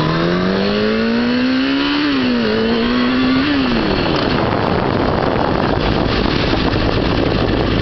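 2003 Kawasaki Ninja ZX-6R's inline-four engine pulling up in pitch under throttle for about two seconds, dipping briefly, then falling away around three and a half seconds in. Wind rush on the microphone then covers it.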